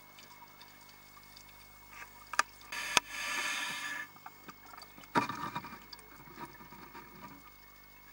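A scuba diver's regulator breathing, heard underwater. A couple of seconds in come two sharp clicks and a hiss of about a second as the diver inhales, then a burst of exhaled bubbles gurgling for about two seconds.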